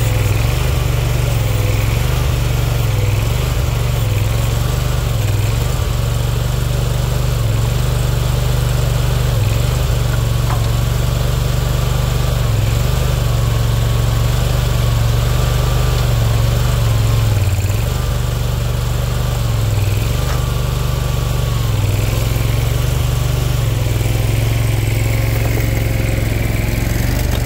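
Boxer 427 mini skid steer's Kohler 27 hp Command Pro V-twin engine running steadily under hydraulic load as the grapple lifts heavy logs. The engine tone dips briefly every second or two as the hydraulics take the load, and a faint whine comes and goes above it.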